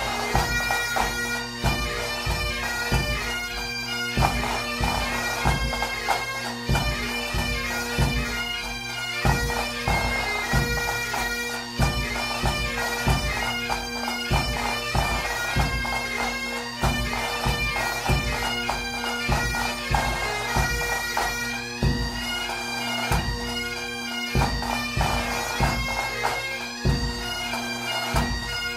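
Bagpipe music: a melody played over steady held drones, with a drum beating a regular rhythm underneath.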